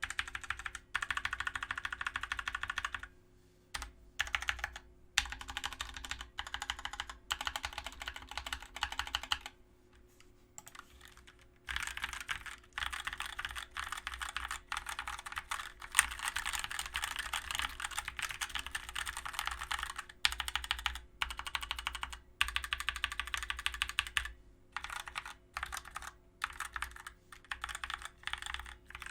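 Fast typing on a Dierya DK63 60% mechanical keyboard with Outemu switches: dense runs of keystrokes broken by short pauses, the longest about ten seconds in.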